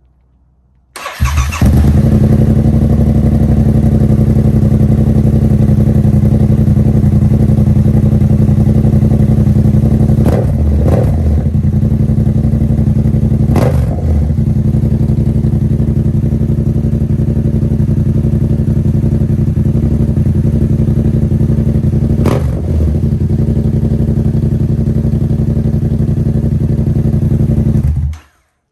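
A 2022 Yamaha R7's 689 cc parallel-twin engine running through an aftermarket exhaust with the baffle removed. It starts about a second in, runs mostly at a steady idle with a few short blips of the throttle, and is super loud.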